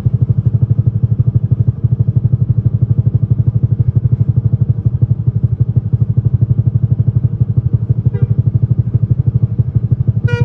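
A vehicle engine running steadily close by, a fast, even low throb that doesn't change. A brief, faint multi-note horn sounds about eight seconds in.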